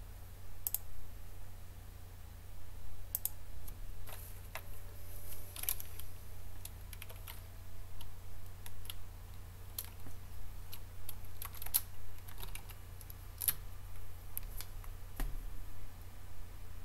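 Irregular keystrokes on a computer keyboard, a few quick key presses at a time with short pauses, over a steady low hum.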